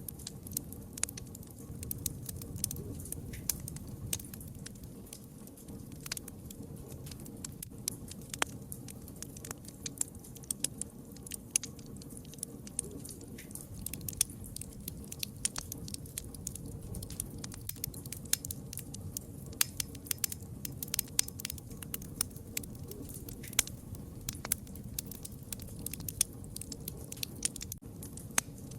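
Wood fire crackling: many irregular sharp snaps and pops over a steady low rumble of the flames.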